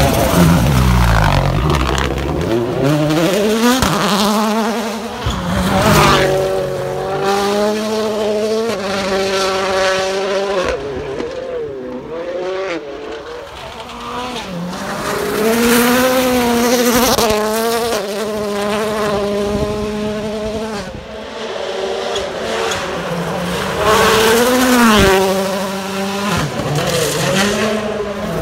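A 2017 Ford Fiesta WRC rally car's 1.6-litre turbocharged four-cylinder engine running hard on gravel, revving up and dropping back again and again through the gears. It passes close by at the start, again about six seconds in, and once more near the end, with a quieter, more distant stretch in the middle.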